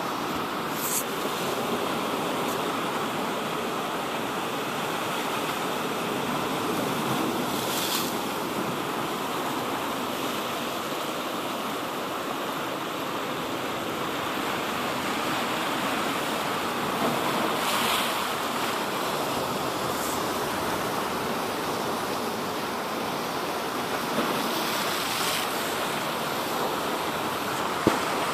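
Sea waves washing onto a shore: a steady rushing surf with a few brief louder splashes, and wind on the microphone.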